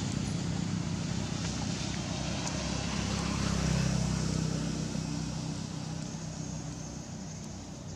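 A motor engine running with a low, steady hum, swelling about halfway through and then fading away.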